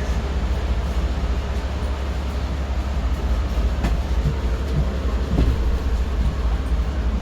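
Steady, loud low rumble with a train-like sound, the train sound effect that a Foton C10 electric bus plays to warn passengers it is arriving. There is a single click about four seconds in.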